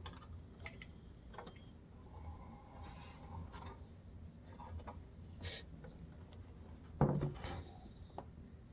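Light handling noises from a small PC case and its parts: scattered faint clicks and rubbing, with a louder bump about seven seconds in.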